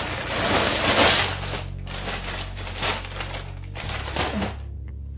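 Plastic courier mailer bag rustling and crinkling as it is pulled open and handled, loudest in the first second and a half, then in shorter bouts.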